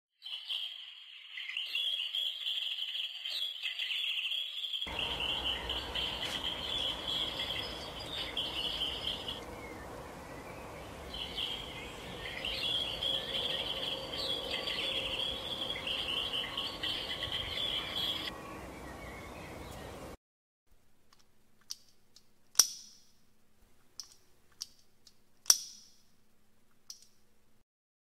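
Small songbirds chirping and twittering rapidly in high notes, in two stretches, the second over a steady hiss. After that, a few sharp taps stand out against a quiet background.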